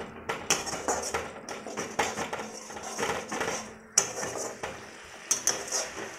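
Metal spatula scraping and knocking against a metal kadai in irregular strokes, with one sharper knock about four seconds in, as a thick masala is stirred and cooked down until the oil separates.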